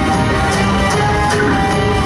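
Upbeat music for a stage dance, with a steady beat of about two strokes a second.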